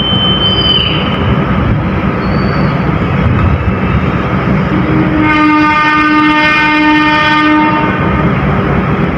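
Train rumbling along the tracks, with a high wheel squeal that slides down and stops about a second in. A locomotive horn then sounds one long blast of about two and a half seconds.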